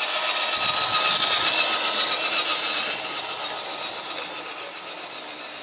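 Radio-controlled model articulated lorry driving past, its drivetrain giving a steady high whine over tyre hiss on tarmac, loudest about a second or two in and then fading as it moves away.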